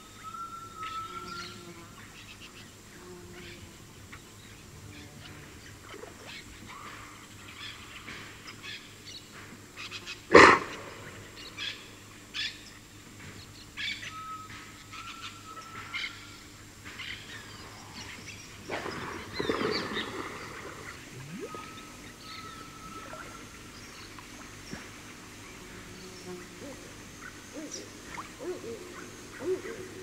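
River dolphin blowing at the surface close up: one sharp, loud blow about a third of the way in and a longer breathy snort about two-thirds of the way in. Behind it a bird repeats a short rising whistle every several seconds and insects drone steadily.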